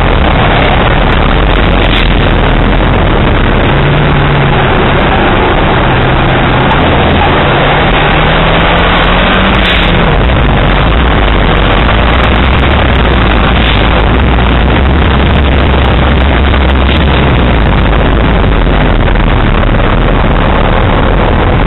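Heavy wind and road rush on a front-bumper-mounted camera of a Reliant Scimitar Sabre driven at speed on a track. The engine note sits faintly beneath it, rising and then dropping about ten seconds in.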